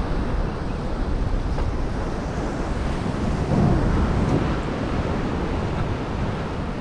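Sea surf washing against a rocky shore, with wind buffeting the microphone; the rush swells louder a little past the middle.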